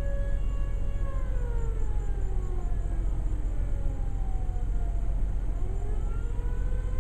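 Federal Signal borough fire siren holding a steady tone, then winding down in pitch about a second in and winding back up to its steady tone near the end. A steady low rumble lies underneath.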